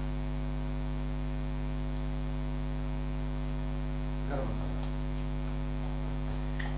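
Steady electrical mains hum with a line of even overtones, unchanging throughout. A faint brief sound comes about four and a half seconds in.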